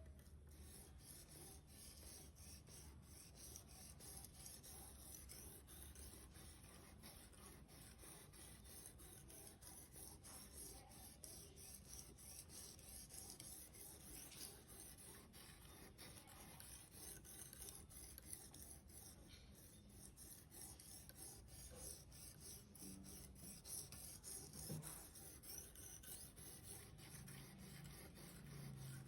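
Faint, repeated rasping strokes of a Victorinox knife blade being drawn across a sharpener.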